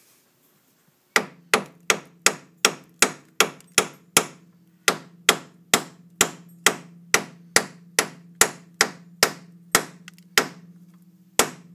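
Small hammer striking the front suspension parts of a 2002 Saturn again and again, about two to three blows a second, each leaving a metallic ring. The taps knock the knuckle and strut pieces down into line so a bolt can be started. The blows begin about a second in, with a brief pause about four seconds in and another near the end.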